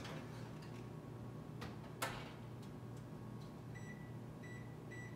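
Wall oven door shut with a knock about two seconds in, then the oven's control panel beeps three short times as its keys are pressed.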